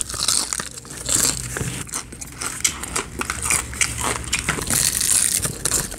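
A person bites into a crispy fried chicken breast and chews it close to the microphone, with a rapid, irregular crunching and crackling of the breaded crust.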